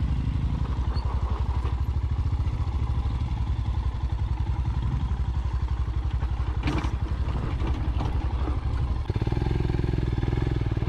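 Royal Enfield Scram 411's single-cylinder engine running at low revs with a steady, even pulse, heard from the rider's seat. A short clack sounds about two-thirds of the way through.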